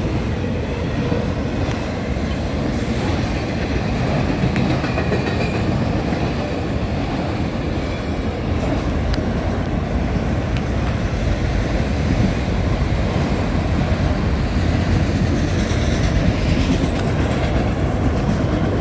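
Freight train of autorack cars rolling steadily past a grade crossing: continuous wheel-on-rail noise from the passing cars.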